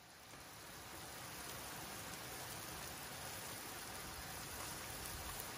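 Steady hissing sizzle of beef cubes frying in a small grill pan on a gas camp stove, fading in over the first second or so.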